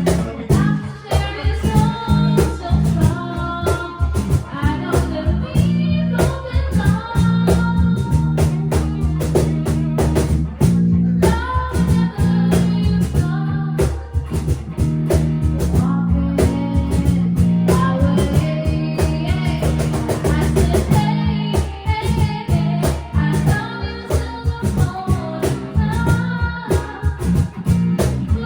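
A live rock band jamming: electric guitar, bass guitar and drum kit playing a blues-rock groove, with a singing voice at times.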